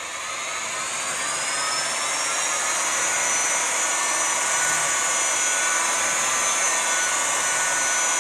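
Variable-speed grinder running with the red 800-grit Monkey Pad on marble, working an etch mark. Its motor whine climbs in pitch over the first three seconds, then holds steady and loud.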